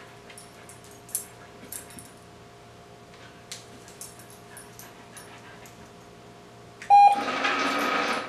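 Treat and Train (Manners Minder) remote treat dispenser giving one short beep near the end, then running for about a second as it dispenses a treat. Before that, only faint scattered clicks.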